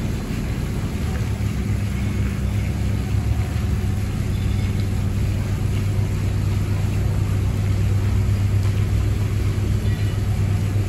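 Steady low machine hum with a constant drone that does not change.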